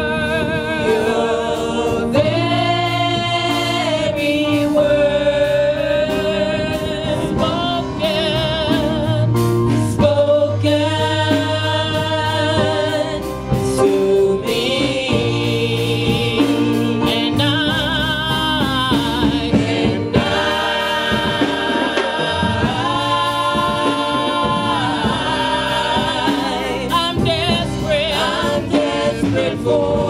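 Worship music: singing over instrumental accompaniment, with long held notes that waver with vibrato over steady bass notes.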